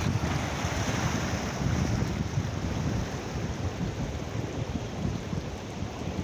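Wind buffeting the microphone over the wash of small waves breaking and foaming against a rocky shore.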